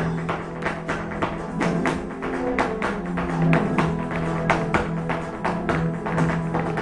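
Flamenco music with guitar, over a run of sharp taps, several a second, from flamenco footwork (zapateado) striking the stage floor.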